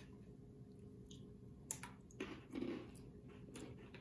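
Faint scattered clicks and crunches of crunchy corn pretzel sticks being bitten and chewed, with the small crackle of the plastic snack wrapper being handled; a few sharper clicks come near the middle.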